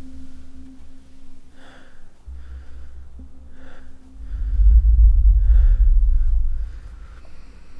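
A person breathing heavily, in sharp breaths about once a second, over a deep low rumbling drone and a faint steady hum. The drone swells loud about four seconds in and eases off before seven.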